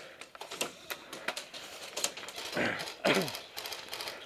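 Scattered sharp clicks and pops of airsoft guns firing at irregular intervals, with a short shout about two and a half seconds in.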